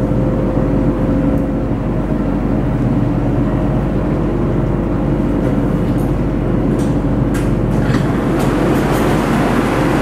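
BTS Skytrain running along its track, heard from inside the car. There is a steady hum from the motors and rolling wheels, a few sharp clicks from about six seconds in, and louder, rougher rail noise from about eight seconds in.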